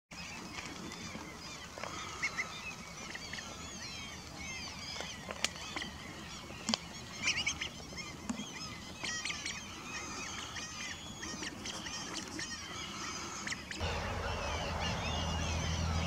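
Many birds calling together in rapid, repeated chirps, with a few sharp clicks. From about 14 seconds a steady low hum joins in.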